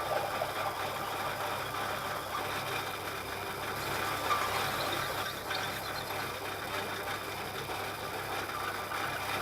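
Milling machine running steadily while drilling a hole in an aluminium part.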